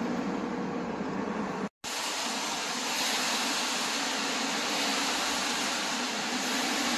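Steady city street noise, an even hiss over a low hum of traffic. It drops out for a moment under two seconds in and comes back as a brighter, steady hiss.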